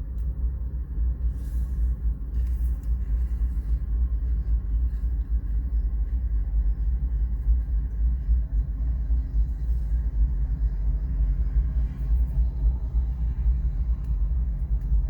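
Low, steady rumble of BNSF GE ES44 diesel locomotives pulling a sand train, swelling over the first second and then holding.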